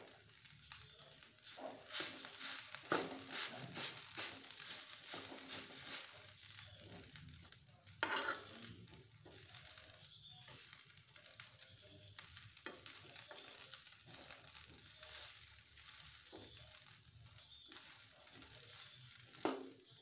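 Fried rice sizzling in a wok over a gas flame while a spatula stirs and scrapes it. Quick spatula strokes against the pan come thickly in the first few seconds, with one loud knock about eight seconds in and another near the end.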